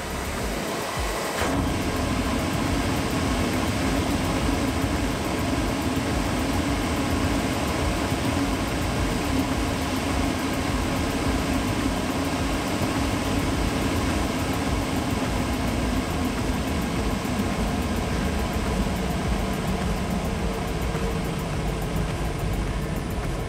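Amano inverter dust collector running steadily, its fan drawing air through the open intake port. About a second and a half in, the sound changes as a hand is taken off the intake. Near the end the fan's hum falls in pitch as the inverter slows the motor down toward 30 Hz.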